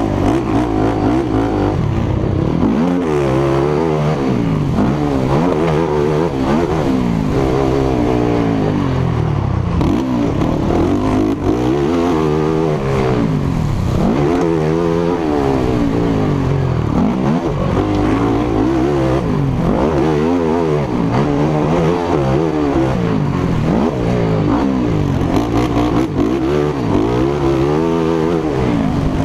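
Race quad's engine heard up close from a camera mounted on the machine, revving hard and easing off over and over as the rider works the throttle and shifts during a motocross race. The pitch climbs and drops every second or two.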